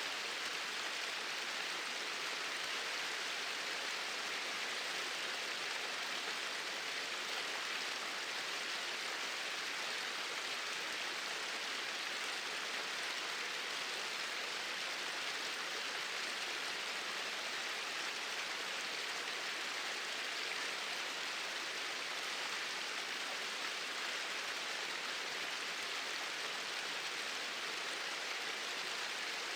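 Small waterfalls pouring steadily over rocks into a stream, a constant even rush of water that does not change.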